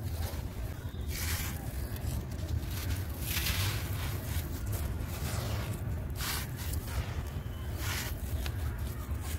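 Dry, gritty molded block crumbling in bare hands, the grit and powder pouring and rustling through the fingers in repeated handfuls, a burst of hiss every two seconds or so over a low steady rumble.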